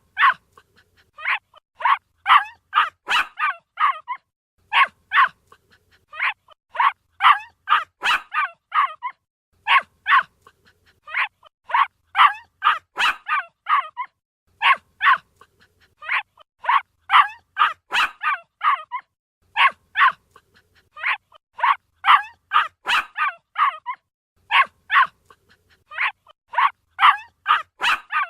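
A puppy barking in short, high-pitched yips, in quick runs of several at a time with brief pauses between the runs.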